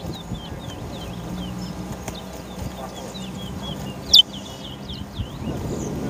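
Caged towa-towa finches (chestnut-bellied seed finches) singing in a song race: a steady run of short, quick chirping notes, with one loud, sharp high note about four seconds in.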